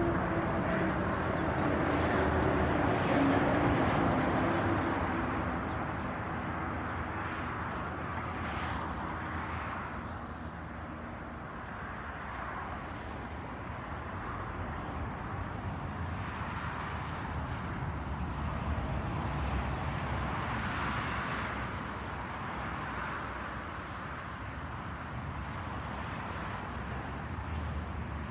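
Steady outdoor rushing noise. In the first few seconds a motor vehicle passes, its engine note falling in pitch, and a few fainter swells follow later.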